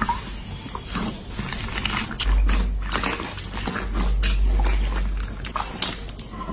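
Hands squeezing and kneading clear green slime worked into fluffy white slime: wet squelching with many small crackling pops, over a low rumble.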